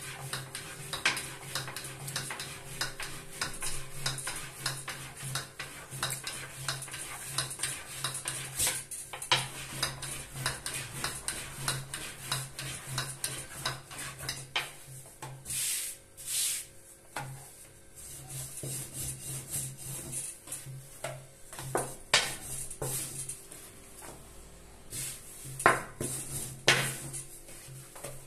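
Long, thin wooden rolling pin rolling dough out on a floured tabletop: a continuous run of small clicks and knocks as the pin rolls back and forth and taps the table, with a few sharper knocks near the end.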